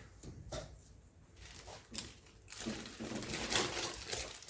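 Faint, intermittent rubbing and handling noises, growing denser and a little louder about two and a half seconds in.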